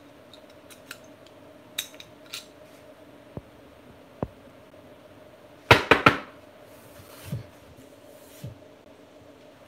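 Small clicks and taps of a die-cast model truck cab and its plastic parts being handled and worked apart, with a quick cluster of louder clacks about six seconds in.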